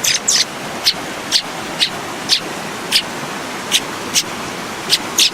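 Steady rush of running water from a creek, with a bird's short high chirps repeating about twice a second; one falling whistle comes right at the start.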